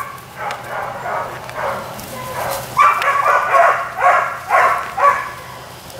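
Five-week-old Weimaraner puppies barking in a run of short, high yips, about two a second, tailing off near the end.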